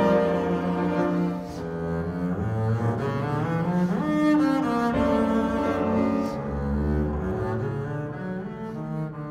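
Double bass played with the bow, a fast melodic line with a quick slide up to a high note about four seconds in, with grand piano accompanying.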